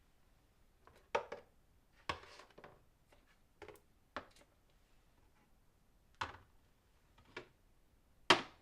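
A door being worked open and shut: a series of short, sharp knocks and clunks, with the loudest one near the end.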